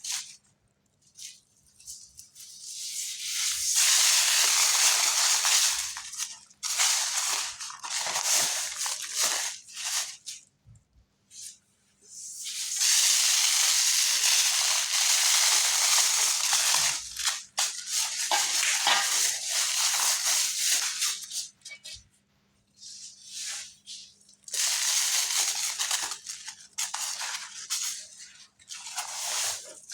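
Glittery cement chunks crumbling and being crushed in long stretches of crunching, several seconds each, broken by short pauses. A faint steady hum runs underneath.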